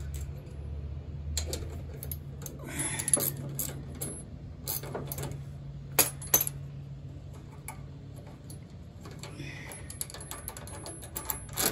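A ratchet wrench clicks in short runs, with metal brake parts clinking as they are worked off the rear brake of a John Deere LT150 lawn tractor. Two sharp clacks come about six seconds in, and a steady low hum underneath fades away partway through.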